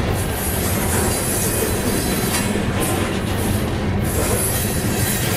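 Loaded freight train's open-top hopper cars rolling steadily past at close range, steel wheels running on the rails.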